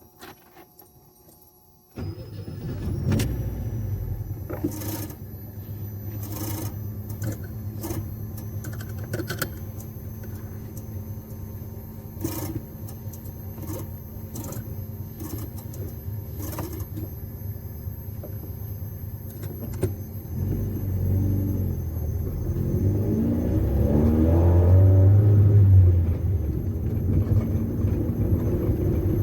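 Chevette four-cylinder engine, running on Arduino-controlled fuel injection, comes in suddenly about two seconds in and runs steadily with scattered clicks and knocks. From about twenty seconds in it revs up, its pitch rising over several seconds as the car accelerates.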